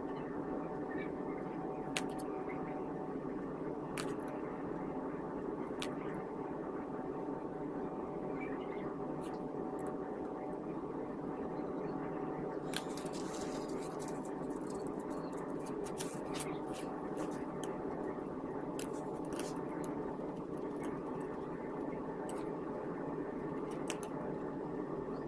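Small metal tools clicking and scraping against a wristwatch during repair work, with a busier stretch of scraping about halfway through, over a steady background hum.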